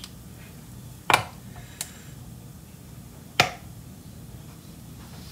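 Sharp clicks and knocks from kitchen items being handled: two loud ones about two seconds apart and a fainter one between, over a low steady hum.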